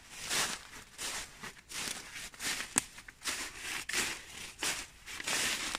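Footsteps crunching through dry fallen leaves at a walking pace, about two steps a second, with one sharper click about halfway through.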